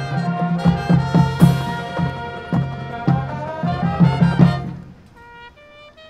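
Marching band playing loudly, brass with drumline hits, then cutting off about five seconds in, leaving a few soft held notes.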